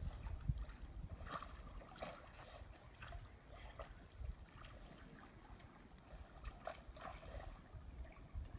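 Faint trickling and lapping of floodwater, with scattered small ticks and splashes over a steady low rumble.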